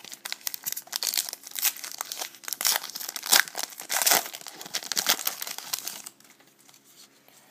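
Wrapper of a trading card pack crinkling and tearing as it is opened, a dense run of crackles that stops about six seconds in.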